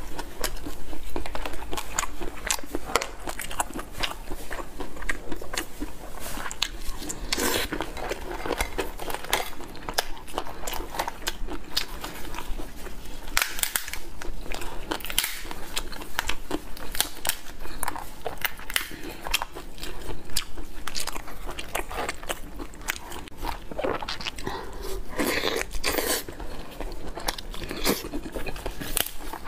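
Close-miked eating of cooked lobster: biting and chewing of the meat, with crackling and crunching as pieces of shell are broken apart by hand. Dense short clicks run throughout, with a few longer crunches.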